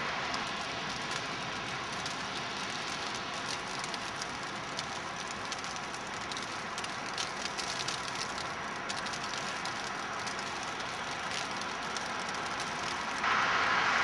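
Outdoor ambience in heavy, wet snowfall: a steady hiss with a few faint scattered ticks. It jumps louder and brighter about 13 seconds in.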